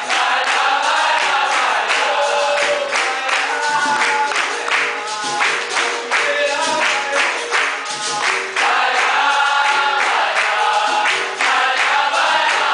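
Capoeira roda music: a group singing together over berimbaus and an atabaque drum, with the circle clapping along in time.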